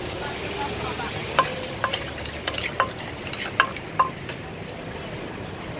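Several sharp knocks with a short ring, irregularly spaced between about one and a half and four and a half seconds in, from utensils striking a clay som tam mortar as ingredients are added and mixed. Steady street background noise runs underneath.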